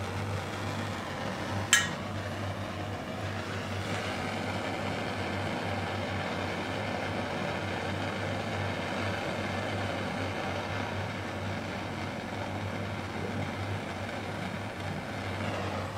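Handheld propane torch flame hissing steadily as it heats a brass tuba slide to solder a spit valve back on, with one sharp click about two seconds in.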